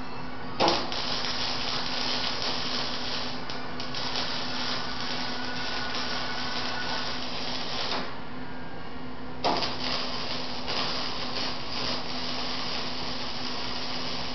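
Electric arc welding crackling in two runs as chain is welded onto a steel drum, each run beginning with a sharp strike. The first run lasts about seven seconds and the second starts about nine and a half seconds in, both over a steady hum.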